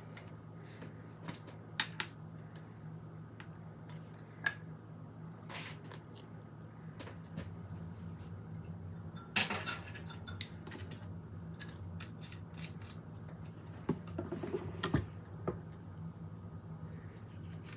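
Quiet kitchen handling: scattered light clicks, taps and knocks of utensils and containers being set down and handled, a few louder around the middle and near the end, over a low steady hum.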